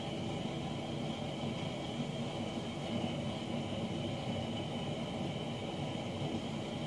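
Space heater running in a garage: a steady low rumble with a steady high whine on top.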